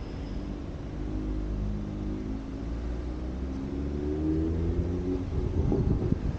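Car engine accelerating as the car pulls away, its pitch rising steadily, heard from a camera on the car's roof, with a few low thumps near the end.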